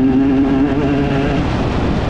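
Enduro dirt bike engine running at steady revs, a rough rumble underneath; about one and a half seconds in, the steady engine note breaks up.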